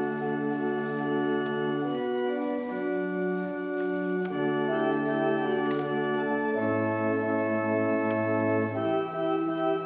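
Organ playing slow, sustained chords that change about every two seconds, the introduction to the sung response.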